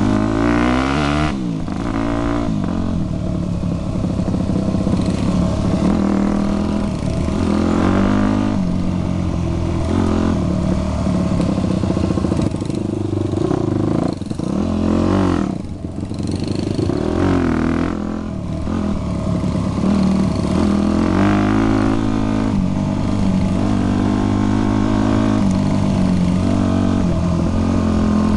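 Yamaha WR dirt bike engine heard from on the bike, running hard down a trail, its pitch rising and falling over and over as the throttle is opened and shut. About fifteen seconds in it drops off the throttle briefly, then picks up again.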